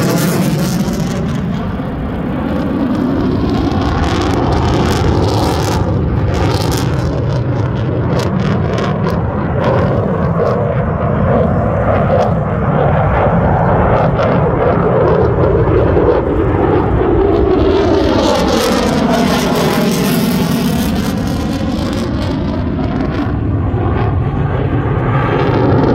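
Loud jet noise from an F-22 Raptor's twin F119 turbofans as the fighter manoeuvres overhead. The sound swells and fades with the passes, and about twenty seconds in there is a sweeping, whooshing shift in tone as the jet goes by.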